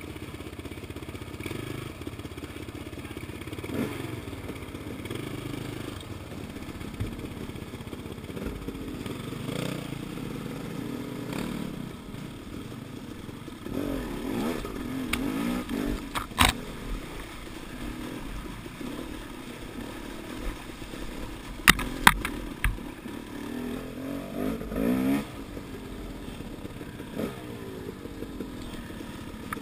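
Off-road dirt bike engine running at low speed, with throttle blips that rise and fall in pitch about halfway and again near the end. Sharp knocks come once after the first blip and twice in quick succession a few seconds later.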